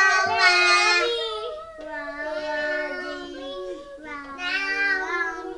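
A young child singing wordlessly in long, drawn-out notes that step up and down in pitch, loudest in the first second or so.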